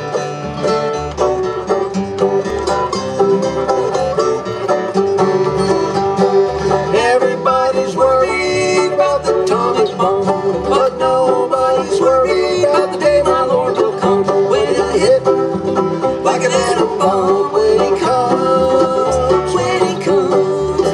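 Acoustic string band playing an instrumental intro in bluegrass style: banjo, acoustic guitar, mandolin and upright bass playing together at a steady tempo.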